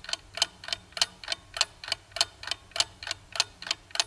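Clock-ticking sound effect used as a quiz countdown timer: rapid, even ticks, about five a second.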